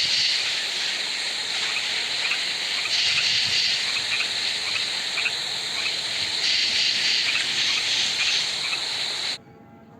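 Recorded night-pond nature ambience: frogs calling in short repeated chirps over a steady hiss. About nine seconds in it cuts off suddenly to a much fainter sound.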